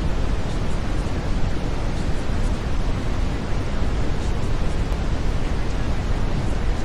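Steady brown noise: an even, unchanging hiss weighted heavily toward the low end.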